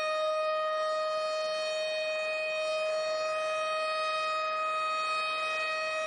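A steady, siren-like tone with a stack of overtones, held at one pitch without a break.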